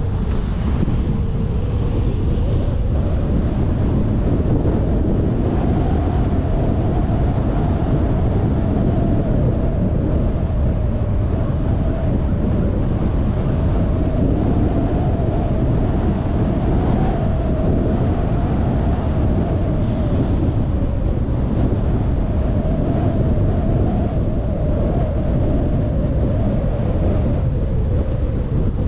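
Steady low rumble of a car being driven: road, tyre and wind noise, with a faint wavering hum in the middle range.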